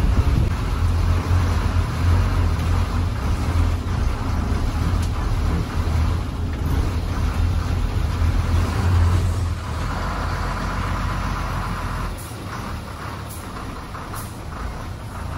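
Lorry's diesel engine running with a steady low hum while the truck is manoeuvred. About ten seconds in, it becomes quieter and more distant.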